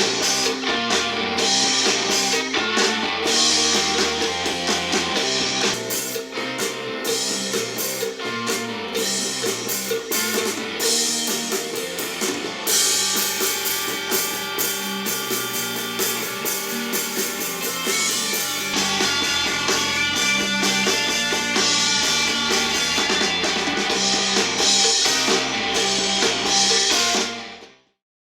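Rock music with electric guitar and drum kit played through a small portable Bluetooth speaker. About two-thirds of the way through, deeper bass comes in. The music fades out just before the end.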